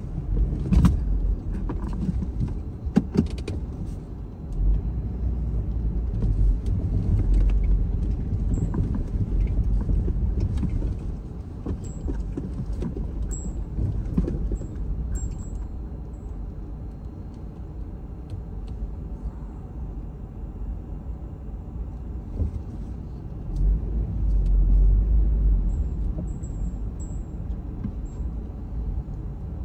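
Car driving: a steady low rumble with sharp knocks and rattles in the first few seconds, the rumble swelling twice.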